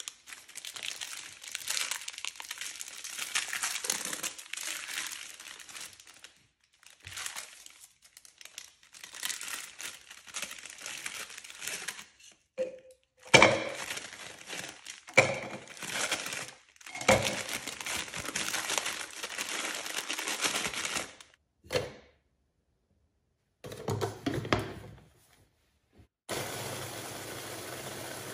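Crinkling and crunching in several short stretches cut apart by silences, with a few sharp knocks in the middle: María-type biscuits being crushed for the cheesecake base. A steady hum starts near the end.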